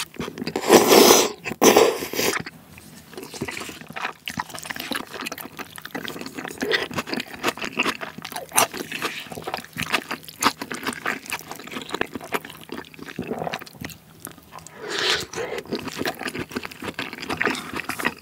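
Close-miked slurping of sauce-coated wheat-flour tteokbokki rice cakes in two loud bursts about a second in, then wet chewing with many small clicks and smacks, growing louder again near the end.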